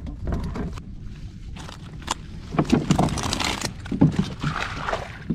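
Wind rumbling on the microphone while gear is handled in a plastic kayak: a cluster of rustling, scraping knocks about two to four seconds in, the sharpest near the end of that cluster.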